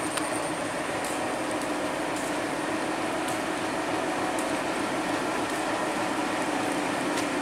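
Passenger coaches of a Bangladesh Railway broad-gauge Intercity train rolling past: a steady rumble with a constant humming tone and occasional light clicks.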